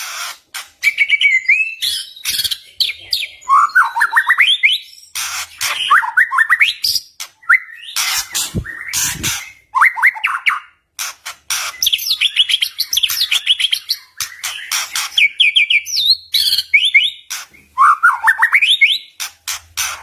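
White-rumped shama singing a fast, varied song. Runs of quick notes climb in pitch and repeat every second or two, mixed with sharp clicking notes.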